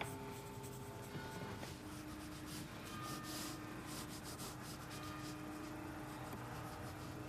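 A pencil scratching on paper in repeated short strokes, as in freehand sketching, over faint sustained music.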